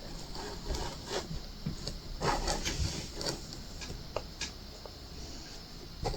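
Scattered small clicks and brief rustles of diamond painting by hand: faceted resin drills shifting in a tray and the drill pen tapping them into place, busiest a little over two seconds in.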